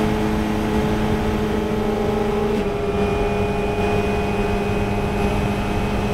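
Race-car engine of a 1969 Macon MR7 Formula Ford, a 1600 cc Ford Kent four-cylinder, running hard at high revs on full throttle through fast uphill bends. Its steady note drops a little in pitch about two and a half seconds in, then holds, over heavy wind and road rush.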